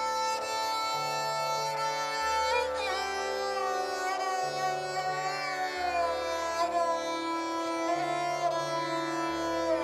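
Instrumental background music in an Indian classical style: a string melody with sliding notes over low sustained bass notes.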